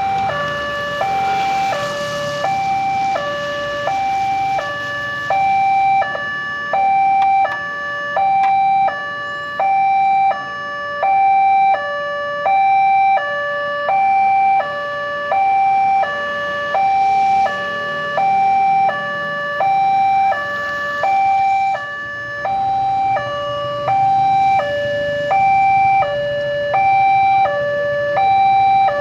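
Railway level-crossing warning alarm sounding: an electronic two-tone signal switching steadily between a higher and a lower note, about one pair a second. It warns that a train is approaching and the barriers are closing.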